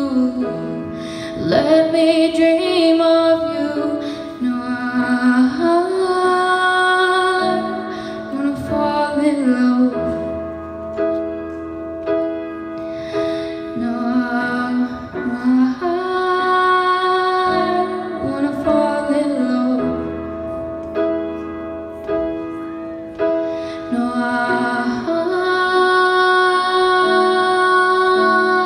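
A woman singing into a microphone, holding long notes, while accompanying herself on an upright piano.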